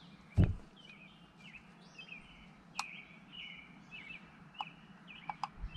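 Songbirds chirping and twittering steadily in the background, with one sharp knock about half a second in and a few light clicks as hands work parts loose at the engine's distributor.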